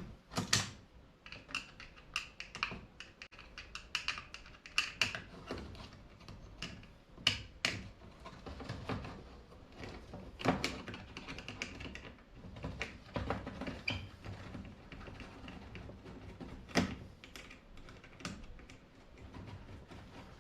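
Irregular clicks, clacks and knocks of metal parts and hand tools being handled while a microwave oven is taken apart by hand.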